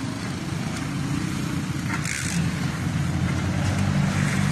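Motorcycle engine running steadily while riding, with road and wind noise, and a brief hiss about two seconds in.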